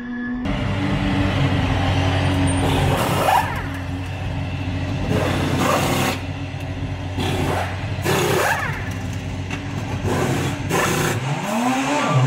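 Super GT race car's engine running steadily in the pit box while pneumatic wheel guns whirr in short bursts during a tyre change, about every one to two seconds. Near the end the engine note rises and falls.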